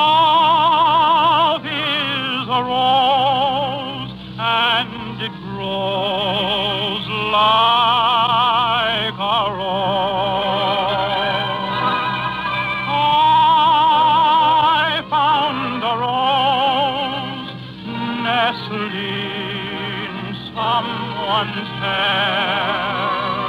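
Male tenor singing a ballad with a wide, fast vibrato on long held notes, in a thin old radio broadcast recording.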